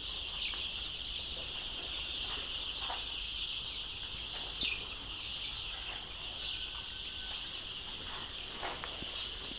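A large flock of young layer chicks peeping together in a steady, high-pitched chorus, with one louder falling chirp about halfway through.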